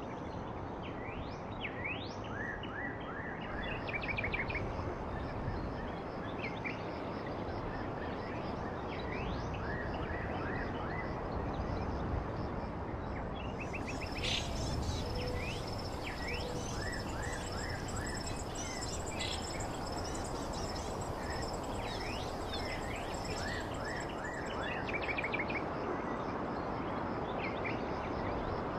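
Forest ambience: birds chirping and trilling in short, repeated calls over a steady rushing background noise. About halfway through, a thin, high, steady tone joins in for roughly ten seconds.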